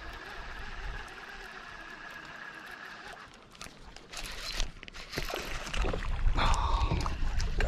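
Water splashing at the surface, once briefly about four seconds in and again, louder and longer, from about six seconds: a bass striking a topwater lure and missing the hook.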